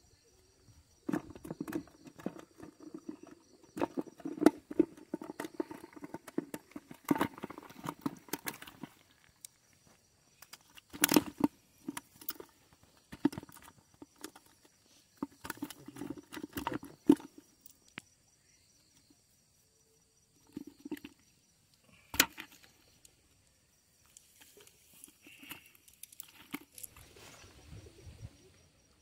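Live fish being picked out of a nylon cast net on wet grass: irregular bursts of rustling, flapping and slapping, with quiet gaps between and a few sharp snaps.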